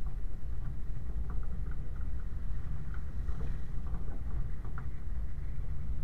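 Land Rover 90 driving along a wet gravel track: a steady low rumble of engine and tyres, with scattered small clicks and rattles throughout.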